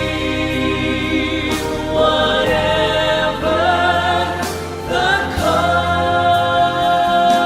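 Gospel song with held, slightly wavering sung notes over a sustained instrumental and bass accompaniment, changing notes every second or two.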